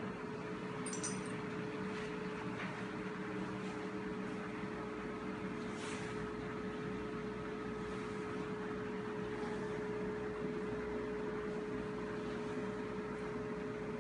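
Robot vacuum cleaner running with a steady whirring hum and a constant whine.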